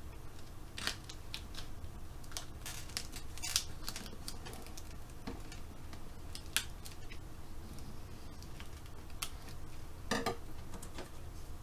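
Die-cut cardstock pieces being handled and pressed together: scattered light clicks and taps over a low steady hum.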